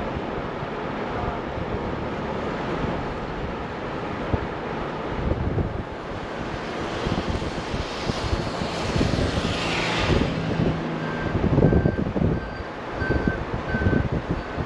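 Steady road and engine noise inside a moving vehicle. A rush of noise builds and fades about nine to ten seconds in, and near the end comes a run of short, evenly spaced beeps, about two a second.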